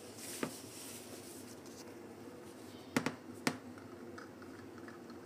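Quiet room hum with three light handling clicks: one about half a second in, then two about half a second apart around three seconds in.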